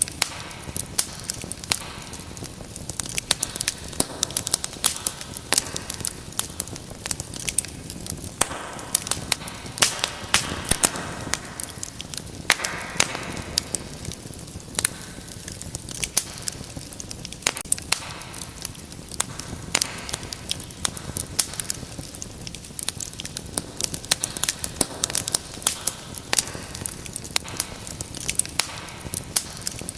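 Wood fire burning in a fireplace, with steady hissing and a constant run of sharp, irregular crackles and pops.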